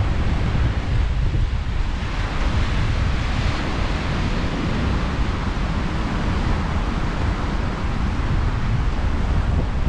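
Ocean surf washing steadily on a beach, with wind buffeting the microphone in an uneven low rumble.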